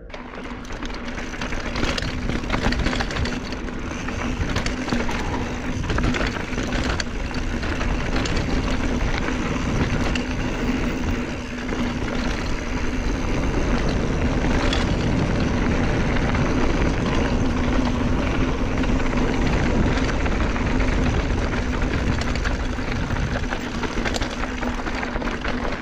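Mountain bike descending a rocky dirt trail, heard from a chest-mounted action camera: a steady rush of wind buffeting the microphone and tyres rolling over dirt, with frequent clicks and knocks from the bike rattling over rocks and a steady hum underneath.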